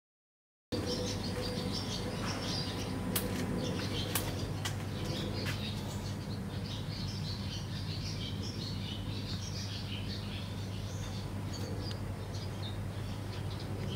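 Small birds chirping over a steady low hum, starting after a moment of silence.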